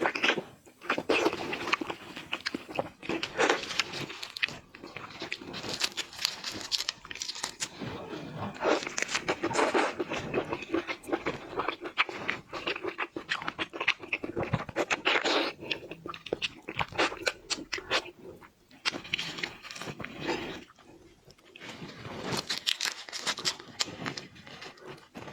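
A person chewing and crunching on half-frozen raw red shrimp, in repeated crunches with short pauses.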